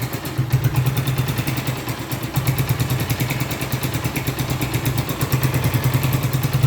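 Honda Titan 2000 single-cylinder pushrod motorcycle engine idling with a steady, even beat.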